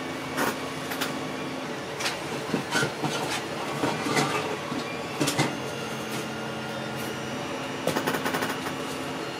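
Small objects being handled and shifted while someone rummages through a cluttered desk: irregular clicks, knocks and light clatter, with a quick run of clicks about eight seconds in. A steady machine hum with faint high whining tones runs underneath.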